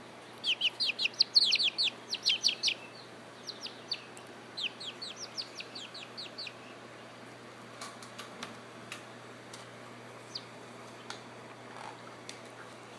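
Young chicks peeping: a quick run of short, high, falling peeps in the first few seconds, thinning out after about six seconds, with a few faint clicks later on.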